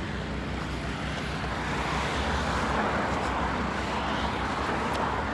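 Road traffic noise: a steady hiss of passing cars' tyres and engines that swells a little in the middle.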